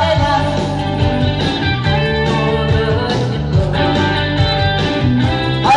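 Backing-track music with a prominent guitar line over a steady bass, played through stage speakers during a live song performance, with little or no singing.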